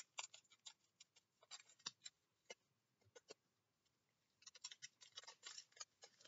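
Faint crinkling and clicking of a foil Pokémon trading card booster pack being handled and opened, with a denser cluster of rustles near the end.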